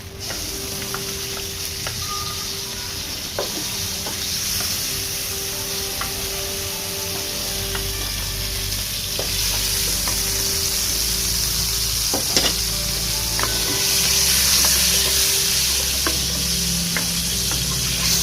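Food sizzling in hot oil in a pan, a steady hiss that grows louder partway through, with a few light knocks of a utensil against the pan.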